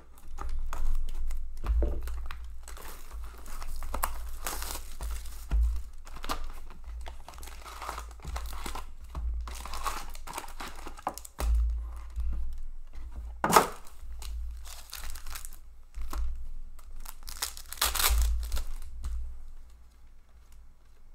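Plastic wrap and foil wrappers of a 2019-20 Upper Deck hockey card box crinkling and tearing as the box is opened and its packs are pulled and ripped open, with one sharp snap a little past halfway.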